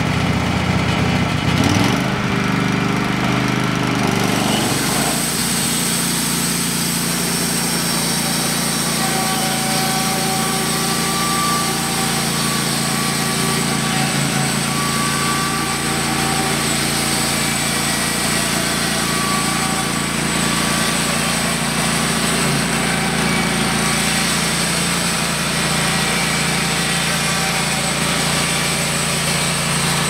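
A Wood-Mizer LT15 bandsaw mill's engine is throttled up about two to four seconds in, then runs steadily as the saw head cuts along a log. A thin high whine carries through the steady running.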